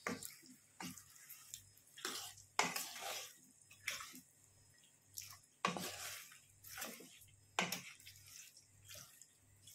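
A plastic spatula stirring raw chicken pieces with shallots and curry leaves in a coated frying pan. It makes irregular scrapes and knocks against the pan, about once a second.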